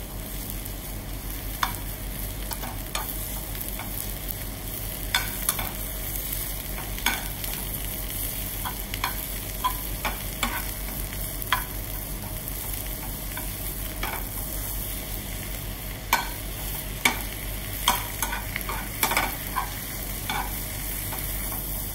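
Spinach, bacon and garlic sautéing in a frying pan with a steady sizzle, broken by irregular clinks and scrapes of a metal spoon stirring against the pan as the spinach wilts.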